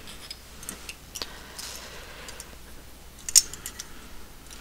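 Light clicks and taps of a small die-cast metal toy truck's parts being picked up and handled, with a brief soft rustle; the sharpest click comes about three and a half seconds in.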